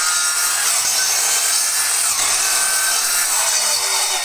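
Evolution sliding mitre saw cutting through a wooden board: a steady, loud whir of the spinning blade in the wood, which cuts off suddenly near the end.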